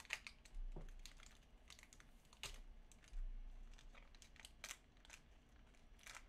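Faint rustling and scattered light clicks of cardboard baseball cards being handled and flipped through, with a little paper crinkle.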